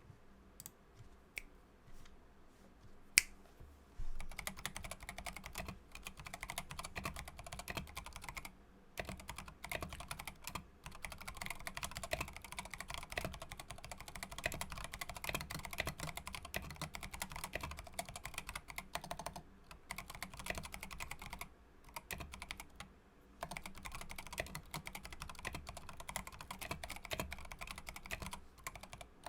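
Savage65 mechanical keyboard in a polycarbonate case with an FR4 plate, T1 tactile switches on 62 g springs and MT3 PBT keycaps being typed on. A few single key presses at first, one sharp, then fast continuous typing from about four seconds in, broken by a few brief pauses.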